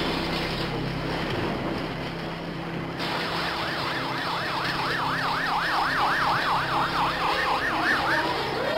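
A steady noisy hiss with a low hum, then about three seconds in an emergency siren starts, wailing up and down quickly, about three or four times a second, and stops shortly before the end.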